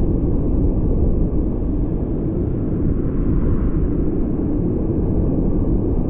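Waterfall plunging into a rock pool: a loud, steady, deep rushing of falling water.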